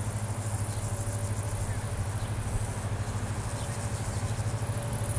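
The diesel engine of EGM621, a General Motors-engined rebuild of a Romanian LDE2100 diesel-electric locomotive, working as it approaches: a low pulsing drone growing slowly louder. Insects buzz high-pitched on and off.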